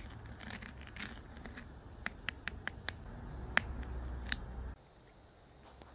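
Metal teaspoon cracking through the hard caramelised sugar crust of a chocolate crème brûlée and scraping against the ceramic ramekin: a string of sharp crackles and clicks, with two louder cracks past the middle.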